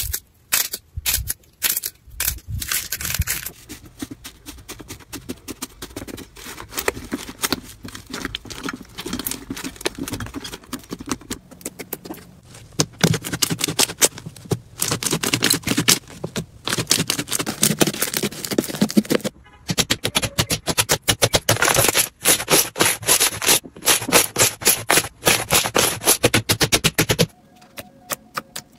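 Slime being squeezed and pressed by hand, giving a dense run of quick crackling, popping clicks that stops abruptly shortly before the end.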